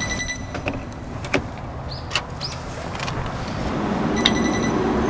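Electric-vehicle fast charger: a short electronic beep, clicks as the charging plug is pushed into the car's charging port, and a second beep about four seconds in as the start button on the touch screen is pressed. A whirring hum grows steadily louder over the last two seconds.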